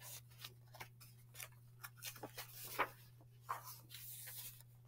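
Faint, irregular clicks and paper rustling from a hardcover picture book being handled, with a page turned near the end.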